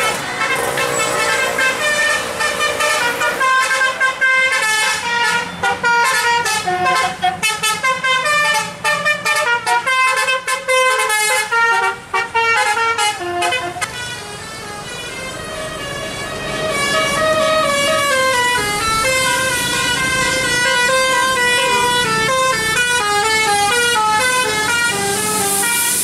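Bus telolet basuri musical air horn playing a melody: a fast run of short stepping notes, then, after a brief dip, a tune of longer held notes.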